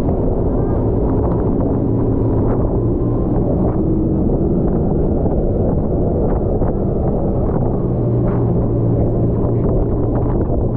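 A tour speedboat's engines running hard with a steady low drone as it powers through river rapids, mixed with rushing water and wind buffeting the microphone.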